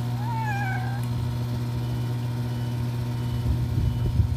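A cat meows once in the first second, one drawn-out call that rises and then falls. A steady low machine hum runs underneath, and a few low thumps come near the end.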